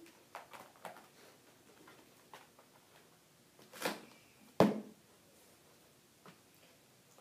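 A shallow plastic box knocking and scraping as a puppy steps out of it and tips it: a few light taps in the first second, a scraping rush about four seconds in, then a sharp knock half a second later, the loudest sound.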